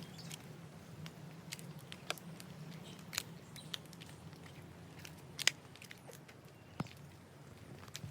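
Slow footsteps crunching on loose ground, heard as scattered light clicks and crunches a second or two apart, over a faint steady low hum.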